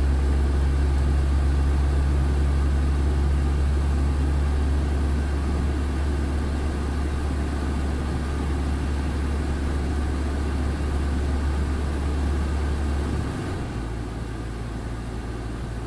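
Heavy truck's diesel engine running steadily, heard from inside the cab as a deep drone while the truck drives slowly on a snow-covered road. About 13 seconds in the engine note changes suddenly and gets quieter.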